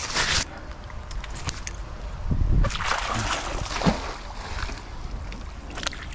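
A magnet-fishing magnet thrown out on its wet rope: the rope swishes out over the creek and the magnet hits the water with a splash.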